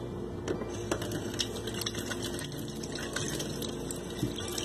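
Kitchen tap running into a stainless steel sink, water splashing over hands as they are rinsed, with small scattered splashes and drips.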